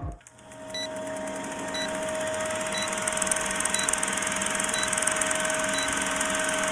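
Vintage film-countdown sound effect: a film projector's rapid mechanical rattle with crackle and hiss over a steady tone, with a faint tick about once a second.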